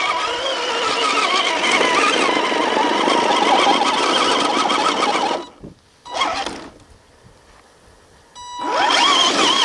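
Electric motor and gearbox whine of a Traction Hobby Founder 2 1/8-scale RC crawler under load. It cuts out about five and a half seconds in, gives a short burst of throttle, and near the end spools up again with a rising whine.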